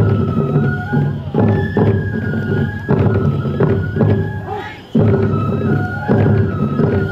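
Tiger-dance festival music: a bamboo flute plays a melody of held notes stepping downward, over taiko drum beats. The phrases restart with a fresh drum stroke about every second and a half.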